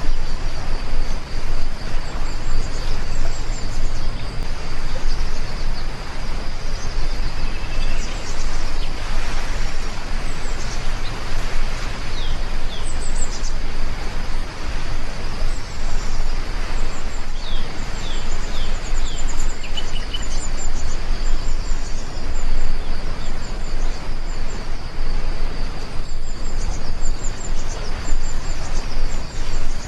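Steady heavy rainfall, a dense even hiss, with short bird chirps breaking through now and then.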